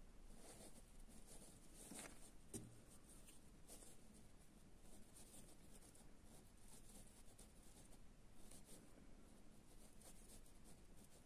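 Faint scratching and rustling of a crochet hook drawing polyester macrame cord through the stitches, with one small click about two and a half seconds in.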